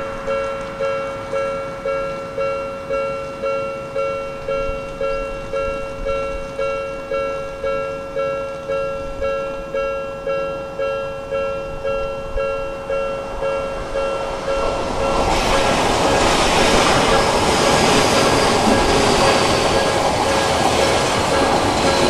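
Japanese level-crossing alarm ringing its repeating electronic bell tone, about one and a half strikes a second, warning that a train is coming. After about fifteen seconds an Odakyu Line commuter train passes close by, and its rumble and wheel noise rise to drown out the bells, with a faint high whine slowly falling in pitch.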